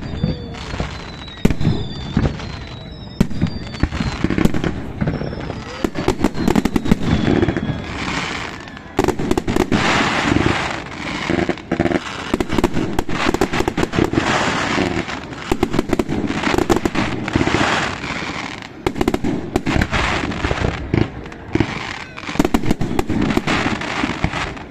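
Firecrackers and fireworks going off in a dense, irregular string of bangs and crackling, with high whistles falling in pitch in the first few seconds and the crackling at its thickest from about 9 to 18 seconds in.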